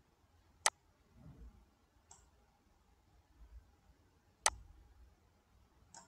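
Two sharp computer-mouse clicks, about four seconds apart.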